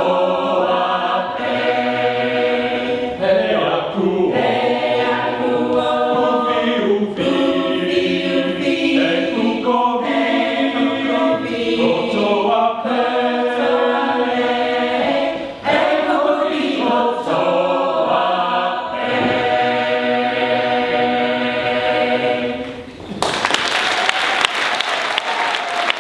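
Choir of men's and women's voices singing in harmony. The song ends about 23 seconds in and audience applause follows.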